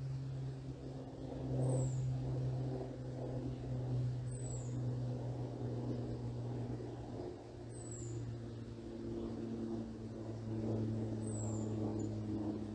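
Aircraft overhead, a steady low drone whose pitch shifts slightly partway through. Over it a bird gives a short, high, falling note four times, about every three seconds.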